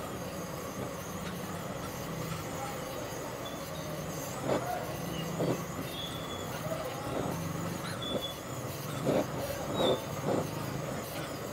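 Handheld butane torch on a gas canister hissing steadily as its flame melts cheese on top of a clay cup, with a few brief background sounds.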